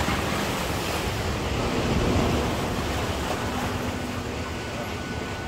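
Sea surf washing onto the beach, a steady rush that swells to a peak about two seconds in and then eases, with wind buffeting the microphone.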